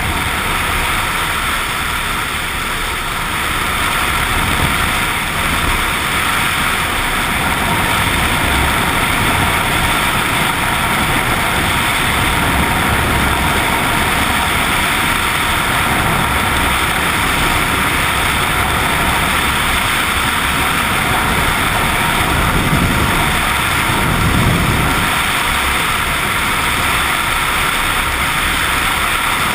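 Suzuki XF650 Freewind's single-cylinder engine running on the move, under a steady rush of wind and road noise.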